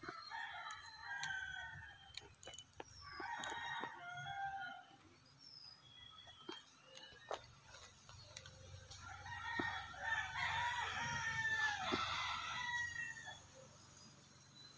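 Roosters crowing in three bouts: one crow at the start, another about three seconds in, and a longer, louder stretch of crowing after the middle.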